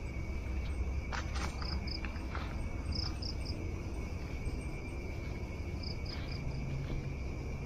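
Night insects calling: a steady high-pitched drone with short chirps in groups of two or three, repeating every few seconds. A few brief rustling clicks come about a second in.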